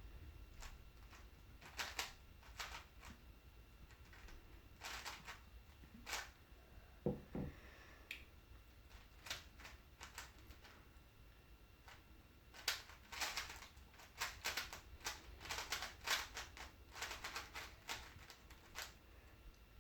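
Plastic puzzle cube being turned quickly by hand: irregular runs of rapid clicks and clacks as the layers snap round, broken by short pauses.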